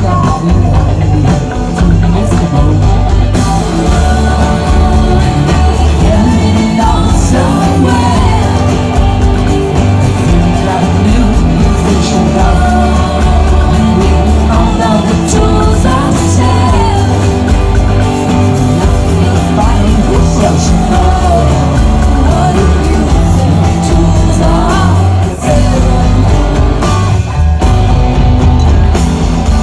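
Rock band playing live, loud, with electric guitars, bass, drums and keyboards, heard from within the audience.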